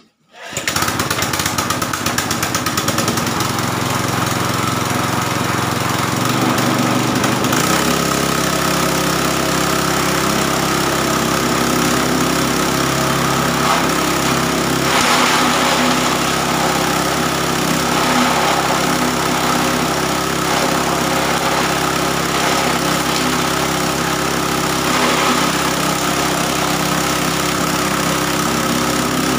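A 6.5 hp single-cylinder petrol engine is pull-started and catches half a second in, then runs steadily, driving a grass chopper's bladed cutter through a belt. Its note shifts about seven seconds in. There are louder, rougher stretches as grass is fed through and chopped.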